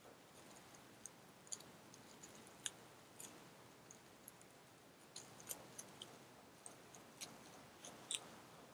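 Faint crinkling of plastic bubble wrap being pulled off a cable's connector by hand, heard as scattered small sharp clicks and ticks.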